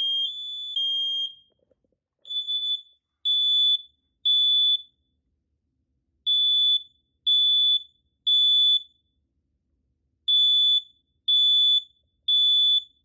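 Smoke alarm sounding in the temporal-three evacuation pattern: three high beeps, a pause, repeated three times. Near the start a second alarm's alternating two-tone beep runs on for about a second and a half, then stops.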